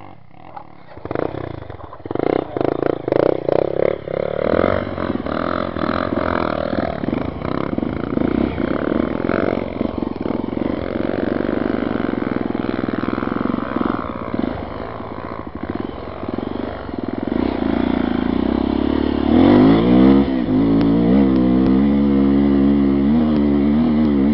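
Dirt-bike engines. A trail motorcycle rides toward the listener in uneven throttle bursts, then about twenty seconds in a motorcycle close by revs up, rising in pitch, and settles into a steady run.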